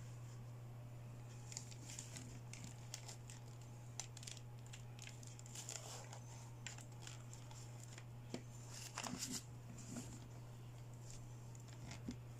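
Small toy accessories and plastic packaging being handled: scattered crinkles, taps and light clicks, with a quick run of clicks about nine seconds in, over a steady low hum.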